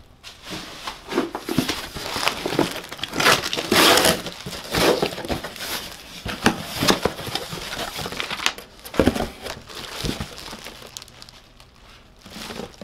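Cardboard box being handled and its flaps pulled open, with crinkling packaging: irregular rustles and scrapes broken by short knocks.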